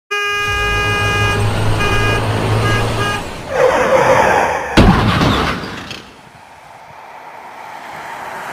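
A steady horn-like tone over a low hum, sounding again in short blasts, then a rushing whoosh and a sharp crash about five seconds in, fading to a faint hiss.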